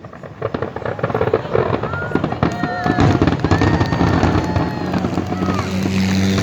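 Fireworks display going off in dense rapid bangs and crackling that build up, with a few short whistles about two to three seconds in. A steady low tone comes in near the end.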